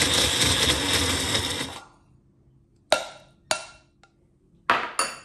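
A small personal blender running as it roughly chops scotch bonnet peppers, stopping about two seconds in. Then about five sharp clinks of glass bowls being set down on the counter.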